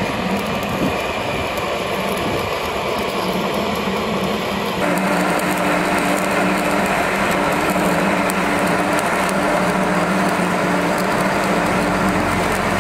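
Stick (SMAW) welding arc crackling and hissing steadily while a root pass is run on a steel pipe joint, with a steady low hum underneath. About five seconds in the sound gets louder.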